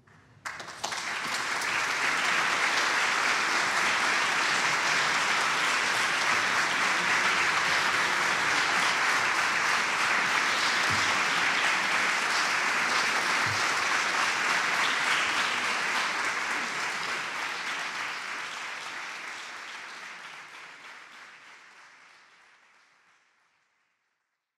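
Concert audience applauding, breaking out suddenly about half a second in, holding steady, then fading away near the end.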